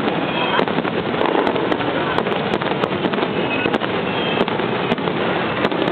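Fireworks starmine: a dense, continuous barrage of shells bursting with many sharp reports over a steady crackling rumble.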